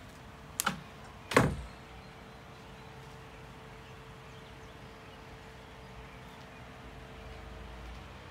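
A door knocks shut twice, a little under a second apart, the second knock the louder, then a steady faint hum.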